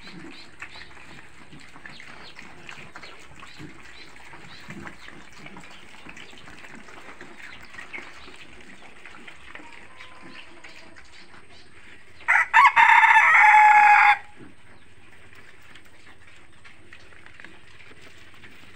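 A rooster crows once, a loud call of about two seconds, some twelve seconds in. Faint chicken clucking and small clicking sounds carry on underneath.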